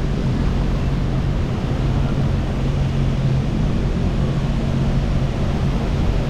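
Personal watercraft engine running steadily at cruising speed, with wind on the microphone and water rushing beneath the hull.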